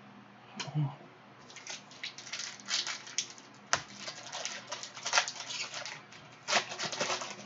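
Foil wrapper of a Panini Prizm retail card pack crinkling as it is handled and torn open: a quick, irregular string of crackles and rustles, loudest in clusters about halfway through and again near the end.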